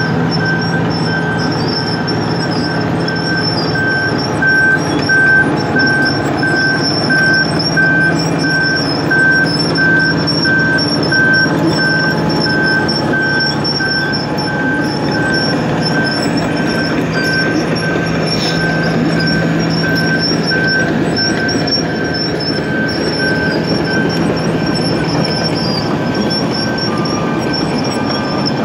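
Wirtgen cold milling machine running under load, its engine and cutting drum making a loud, steady grinding as it mills asphalt. A back-up alarm beeps steadily alongside it and stops a few seconds before the end.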